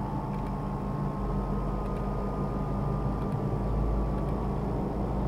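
Steady low hum with background noise, a faint high tone drifting slowly downward, and a low rumble that swells about three and a half seconds in.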